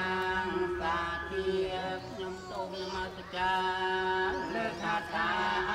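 Buddhist prayer chanting, long held notes with short breaks between phrases.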